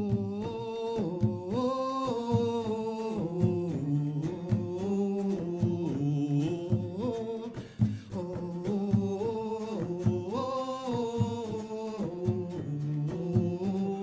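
Live samba: a woman singing a melody into a microphone over a steady percussion beat.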